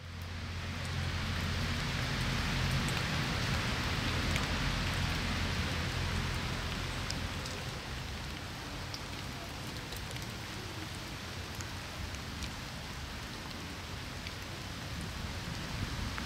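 Steady rain falling, with scattered small drips and a low rumble underneath that eases a little about halfway through.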